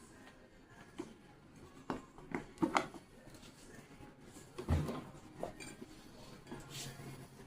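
Metal parts and tools clinking and knocking against each other and a work surface during a pump seal repair, with a cluster of sharp clinks about two to three seconds in and a heavier thump near the middle.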